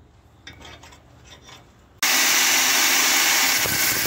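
Angle grinder with a cut-off disc starts abruptly about halfway in and runs steadily under load, cutting into a jammed clutch release-bearing hub on the gearbox's splined shaft. Before it, only faint small sounds.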